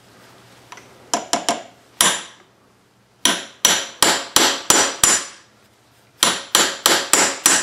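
A hammer striking a metal punch held against a pistol's front sight to drift the dovetailed sight out sideways. A few light taps come first, then two runs of sharp ringing metal blows about three a second.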